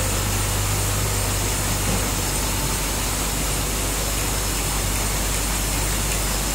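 Auto-lock-bottom folder-gluer carton machine running steadily, its motors, rollers and carrier belts making an even mechanical noise with a low hum underneath.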